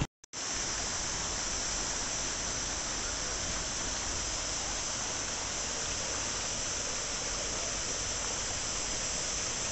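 Water running steadily over the small rock cascades of an artificial garden stream, an even rushing with a strong hiss, starting just after a brief gap.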